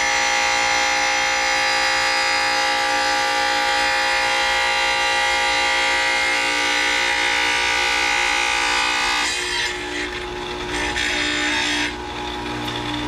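Small tabletop tile saw running with its blade grinding through a tile as the piece is fed through; the grinding stops about nine seconds in as the cut finishes, and the motor runs on more quietly, dropping again about twelve seconds in.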